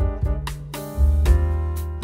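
Instrumental background music with piano over a low bass line, the notes changing every fraction of a second.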